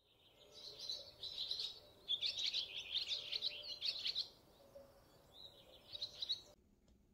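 Guinea pig squeaking: a quick run of high, chirping "pui pui" squeaks, loudest in the middle, cutting off suddenly near the end.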